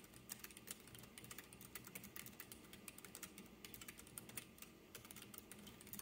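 Gentle typing on a Keychron K3 low-profile keyboard with red optical switches: a quiet, quick, irregular patter of soft key clicks.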